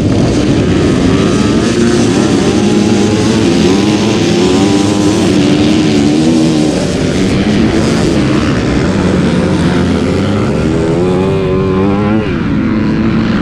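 A field of dirt bikes leaving the line at a motocross race start, engines at full throttle. The nearest bike, a Yamaha WR, rises and falls in pitch repeatedly as it pulls away.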